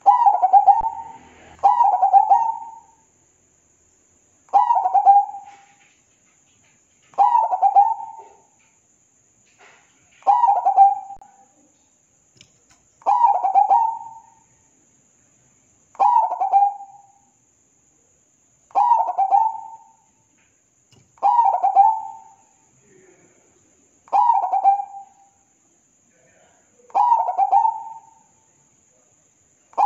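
Zebra dove singing: its cooing phrase of quick, stuttering notes, repeated about every two to three seconds, about eleven times.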